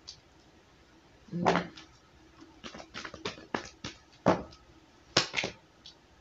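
Tarot cards being shuffled and handled: a string of short, sharp card snaps and taps, with a louder rustle about a second and a half in.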